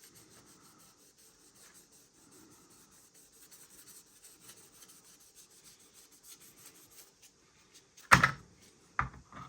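Wet sanding sponge rubbing softly over the painted body of a model car. A sudden loud knock comes about eight seconds in, and a smaller one just before the end.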